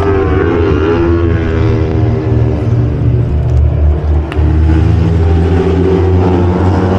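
Superbike racing engines at high revs, their pitch rising and falling as the bikes accelerate and shift, over a steady low rumble.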